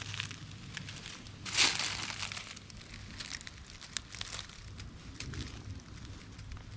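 Footsteps crunching through dry dead leaves and ground cover, with irregular crackles and one louder crunch about a second and a half in.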